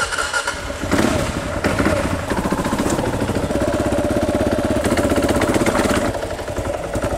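Kawasaki KLR dual-sport motorcycle's single-cylinder engine running under throttle as it is ridden, a fast stream of exhaust pulses that eases off about six seconds in. It is running on the last of the gasoline in the carburetor's float bowl, with the fuel petcock shut off.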